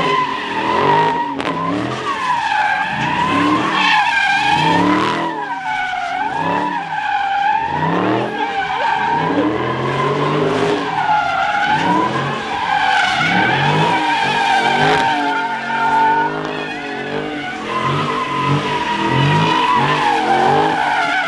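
Car tyres squealing steadily as a car slides and drifts, with its engine revving up and down underneath about once a second.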